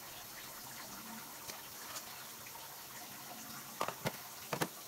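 Faint steady hiss, with a few short clicks and light taps a little under four seconds in and again about half a second later.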